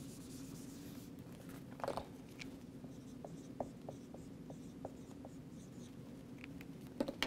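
Dry-erase marker writing on a whiteboard: a series of faint short squeaks and taps as the letters go down, over a steady low room hum.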